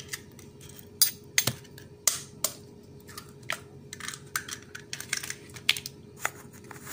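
Eggshells cracking and being pulled apart by hand over a plastic bowl: a scatter of sharp clicks and short crackles.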